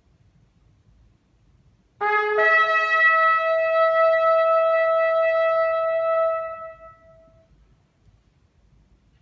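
Long curved shofar blown solo: about two seconds in, a brief lower note leaps up to one held higher blast that lasts about four seconds, then fades out.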